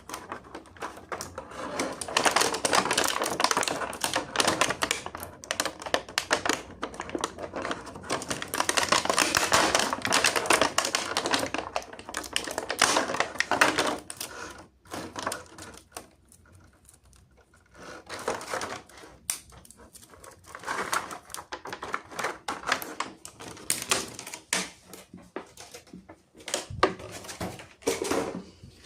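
Rapid, irregular clicking and rustling of plastic toy parts and packaging being handled, loud at first, dropping away for a few seconds past the middle, then coming back in scattered clicks.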